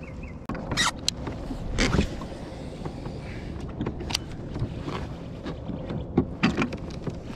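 Irregular clicks and knocks from a baitcasting rod and reel being handled aboard a fishing kayak, over a steady low rumble.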